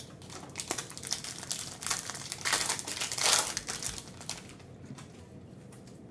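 A Panini Prizm foil trading-card pack crinkling and crackling as it is torn open by hand. The crackling is loudest around the middle and dies down after about four seconds.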